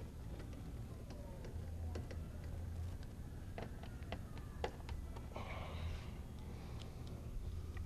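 Screws being fitted and tightened into a motorcycle's plastic fairing: scattered light clicks and taps of the screws and tool, with faint squeaks and a brief scrape about five and a half seconds in, over a low steady hum.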